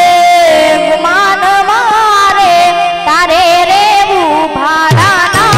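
A female voice sings a devotional bhajan melody in long ornamented phrases over harmonium accompaniment. Low drum strokes come in near the end.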